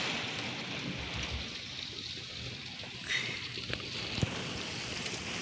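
Heavy rain pouring steadily, with a few sharp ticks of drops striking close by a little past the middle.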